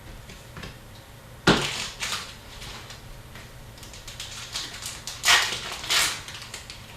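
Hockey card packs and cards being handled: quick rustles and flicks from wrappers and cards, one sharp one about a second and a half in and a cluster around five to six seconds in.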